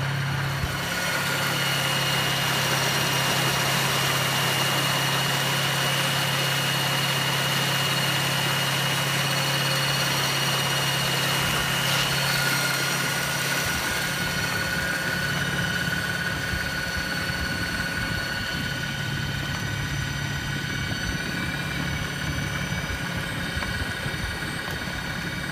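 Torqeedo 1003 electric outboard motor running steadily with the boat under way: a constant electric hum with a thin high whine, over the rush of water and wind.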